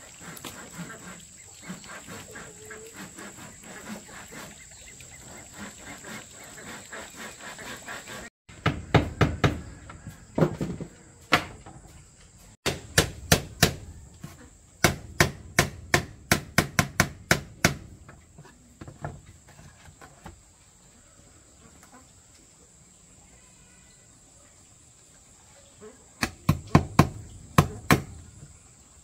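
Insects chirring steadily, and from about a third of the way in, bursts of quick hammer blows on wood, five to eight strikes at a time with pauses between; the blows are the loudest sound.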